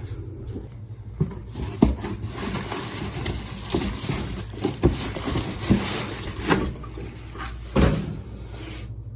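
Several irregular knocks and clunks as a replacement air-conditioner compressor is handled and set into the condensing unit, over a steady low hum and a hiss.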